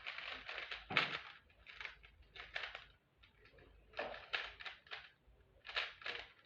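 Rubik's cube being turned fast by hand in a timed solve: short plastic clacks and rasps of the layers turning, in irregular flurries with a brief pause about three seconds in.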